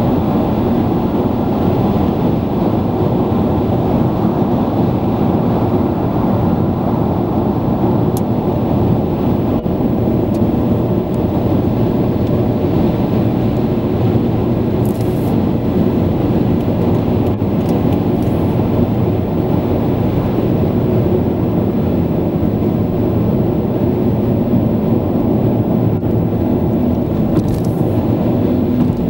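Steady road noise of a car driving at motorway speed, heard inside the cabin: a low, even rumble of tyres and engine.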